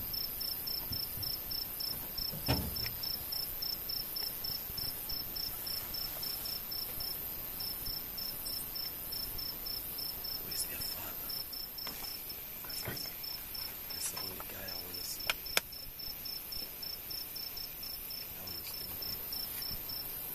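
Night insects calling: a cricket chirping in an even pulse of about three to four chirps a second over a steady, very high whine from other insects. Two sharp clicks come about three quarters of the way through.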